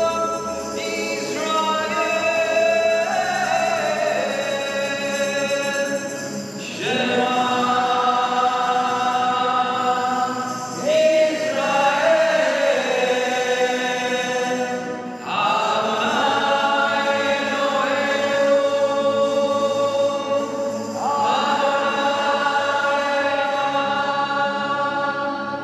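Voices singing a hymn together in long held phrases, five lines separated by short breaks.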